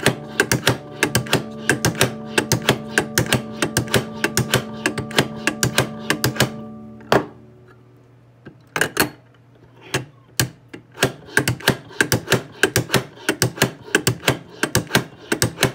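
MD Reed Products bassoon cane profiler at work, its blade carriage swept back and forth over the cane in a rapid run of clicks, several a second. The clicking stops for a moment a little past halfway while the barrel is turned to the other side, then starts again. This is the last stage of profiling, going side to side until the blade takes no more cane off.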